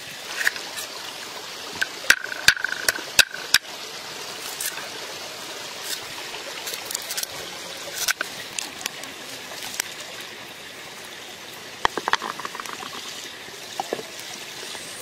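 A steady, watery hiss with scattered sharp clicks and knocks from outdoor cooking work: a cleaver chopping ginger on a wooden board, and clay pots and a clay lid being handled.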